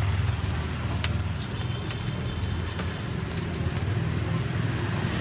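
Steady street background noise at a sidewalk food stall: a low rumble with a hiss over it and a few light clicks.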